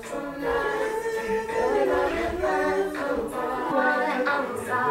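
Voices singing a cappella, with long held notes and no instruments.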